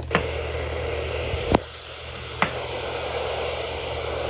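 NOAA Weather Radio reception between messages: a steady static hiss over a low hum, broken by three sharp pops, the loudest about a second and a half in.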